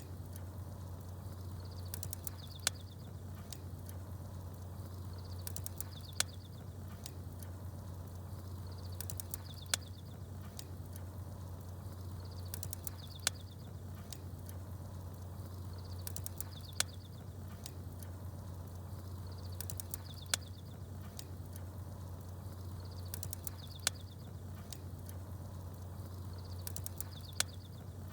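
Crackling campfire with small birds chirping, over a steady low hum. The sound repeats about every three and a half seconds, a short burst of high chirps then one sharp pop from the fire, like a short loop played over and over.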